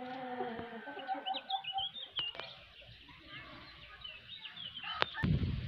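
A chicken's drawn-out call in the first second, then small birds chirping with short, quick, high notes. Near the end there is a sharp click and a low rumble begins.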